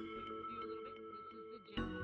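Background music of held notes, with a new chord coming in near the end.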